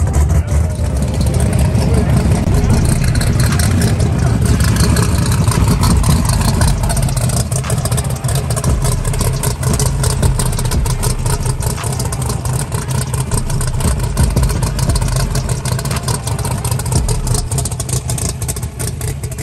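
Drag-race car engines idling loud, with a deep, choppy rumble that eases off slightly near the end.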